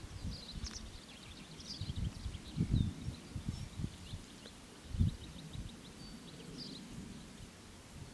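Small birds chirping and trilling, with irregular low gusts of wind rumbling on the microphone, the strongest about a third and about two-thirds of the way through.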